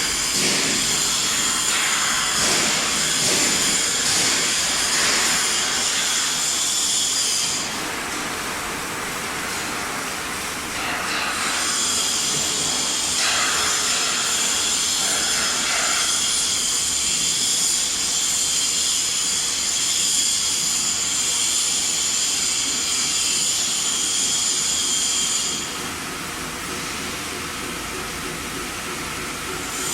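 CNC metal spinning machine running: a steady high-pitched whine over a hiss. The whine drops away twice for a few seconds, about 8 s in and again about 26 s in, and comes back.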